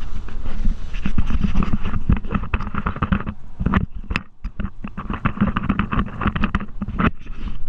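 FC500 center-console boat running at speed, its motor rumbling under wind buffeting the microphone, with irregular knocks and slaps from the hull through the water and a brief lull about four seconds in.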